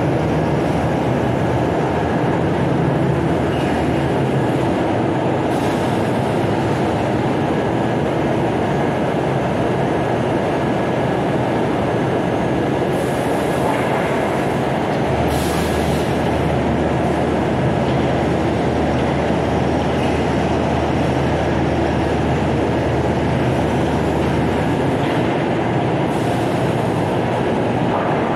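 Fiber cement board production line running: a steady machinery rumble like rolling equipment. A couple of brief hisses come about halfway through, and a lower hum joins just after them and holds for about ten seconds.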